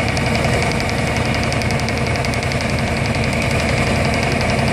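Bruce SGV-400 hydraulic vibratory hammer vibrating a steel sheet pile down into the ground: a loud, steady mechanical din with a fast, even rattle running through it.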